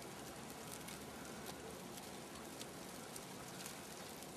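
Faint steady hiss of snow falling, with scattered light ticks of flakes or grains striking surfaces.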